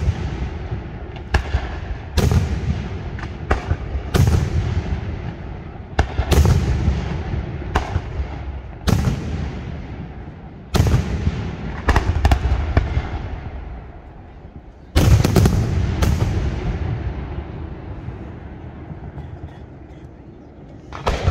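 Aerial firework shells bursting in quick succession, each a sharp bang followed by a rumbling echo that fades over a second or two. The loudest bangs come as a close cluster about fifteen seconds in, then there is a lull before another burst near the end.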